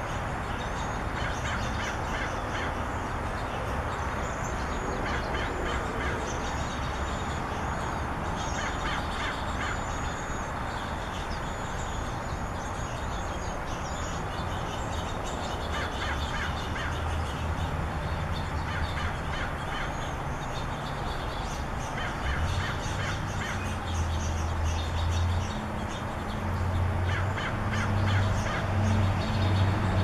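Backyard birds calling: short harsh calls come in groups every few seconds, with thin high twittering through the first half. A low rumble rises under them near the end.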